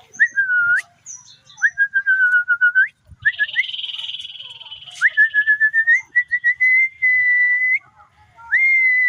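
Common iora singing: a run of drawn-out clear whistles, each opening with a quick upward sweep and then held at one pitch, some broken into short stuttered notes. A harsh buzzy rasp comes in about three seconds in and lasts a couple of seconds.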